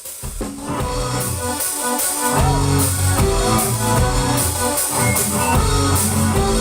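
Live rock cover band playing an instrumental passage on drum kit, bass and guitar, with steady cymbal beats; the bass and drums come in fuller about two and a half seconds in.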